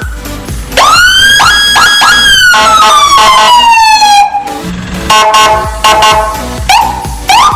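Whelen HHS3200 electronic siren sounding through Whelen SA314A and SA340STS speakers, stepping through its tones. A rise about a second in to a held tone with quick chirps over it, then a long falling glide, then a steady horn-like tone from about five seconds, and fast yelping chirps near the end.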